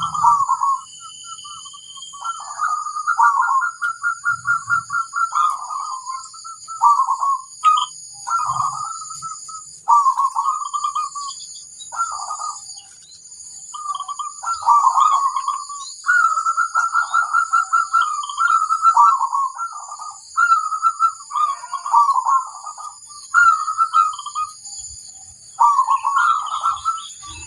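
Zebra doves (perkutut) cooing: repeated phrases of quick rolling notes, one phrase after another with short gaps. A steady high-pitched hiss runs behind them.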